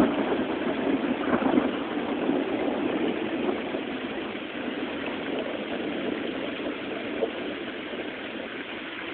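A long roll of thunder rumbling, loudest at the start and slowly dying away, over a steady hiss of rain.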